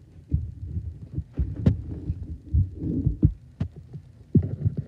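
Irregular dull thumps and a few sharp clicks as hands handle and put down playing cards on a mattress.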